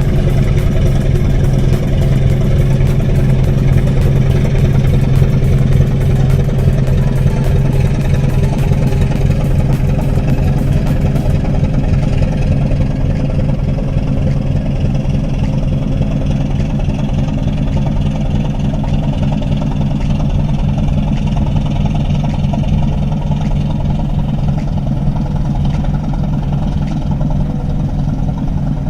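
Boat engine running steadily, a loud low drone with a constant pitch.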